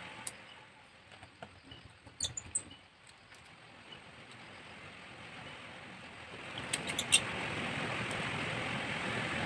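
A few small, sharp clicks and taps of handling at a repair bench, with a tight cluster of them about seven seconds in, over a background hiss that grows louder from about six seconds in.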